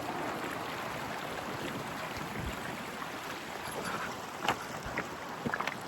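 River rapids rushing steadily, with a few short knocks or splashes in the last couple of seconds, such as steps on wet rocks or in the water.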